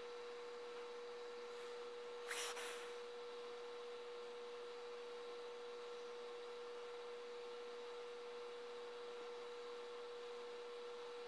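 A steady, faint electronic tone of one fixed pitch over a background hiss, with a short rush of noise about two seconds in.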